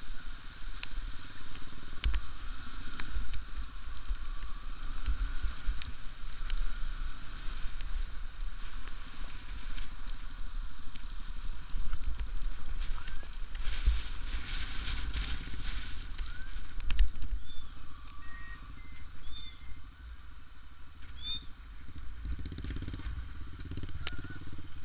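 Motorcycle riding over a rough, rocky mountain track, heard from a camera mounted on the bike: the engine runs under wind noise, with frequent low thuds and rattles from bumps in the road. Near the end a few short high chirps come through.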